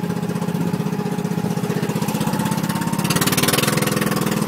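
Small boat engine running steadily with a fast, even chug. A brief rushing hiss rises over it about three seconds in.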